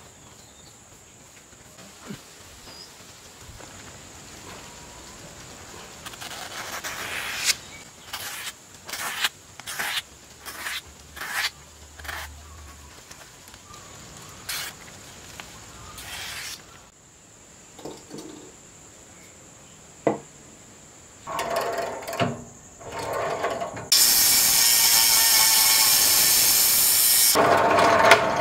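A steel knife blade slicing through a sheet of newspaper in a run of short strokes, roughly one a second. In the last few seconds comes a loud, steady power-tool noise, the loudest part, ending with a drill press boring a hole in a block of wood.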